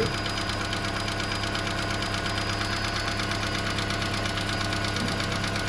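Toyota Prius petrol engine idling steadily, with a fast, even pulse.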